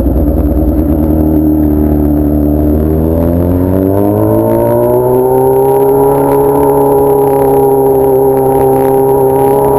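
Honda Hornet motorcycle with a 3-inch aftermarket exhaust running at speed. About three seconds in, the engine note climbs steadily for a couple of seconds as it accelerates, then holds level.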